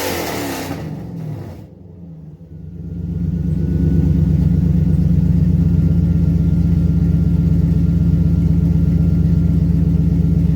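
Lexus SC400's 1UZ-FE V8 running through long-tube headers, an X-pipe and aftermarket mufflers. A rev falls away in the first second, then after a short quieter gap the engine settles into a steady, loud idle from about three seconds in.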